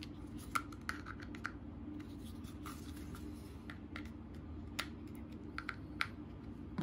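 Plastic toy screwdriver turning plastic screws into a take-apart toy dinosaur: faint, irregular clicks and light scraping of plastic on plastic, over a low steady hum.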